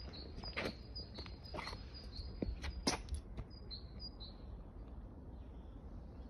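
A small bird repeating a short, high chirp about three times a second, stopping about four seconds in. Over it come a few footsteps on paving stones.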